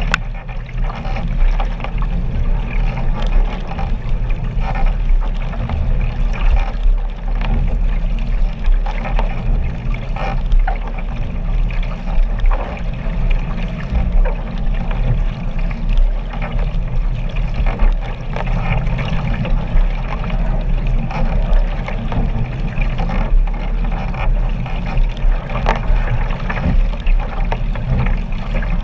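Water splashing and sloshing right at a camera riding low on the surface of a moving boat, in irregular gushes, over a steady low rumble.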